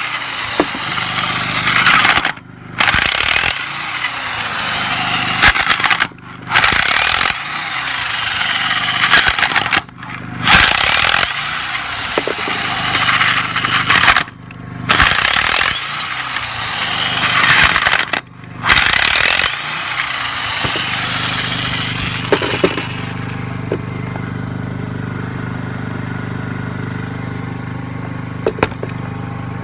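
Corded impact wrench hammering in about six bursts of three to four seconds each, with short pauses between, as it breaks loose and spins off a truck's wheel lug nuts one after another, set to about 200 ft-lb of torque. The hammering stops about 22 seconds in, leaving the steady hum of the portable Honda generator that powers it.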